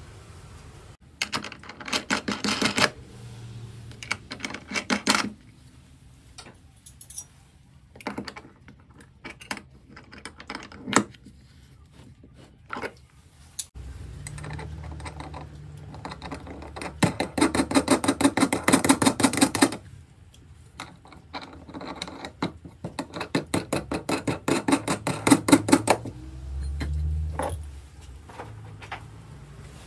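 Rapid mechanical ratcheting clicks in several bursts of one to three seconds, from a tool tightening hardware, with short pauses and brief low hums between the bursts.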